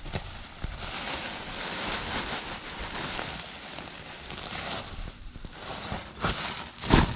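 Sawdust being poured and spread into a planting hole, a dry rustling hiss, with two sharp thumps near the end.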